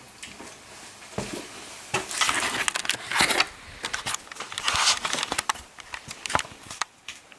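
Handling noise from a camera being picked up and moved: rustling and rubbing with scattered clicks and knocks, loudest in two stretches of rubbing about two to three and a half seconds in and again around five seconds in.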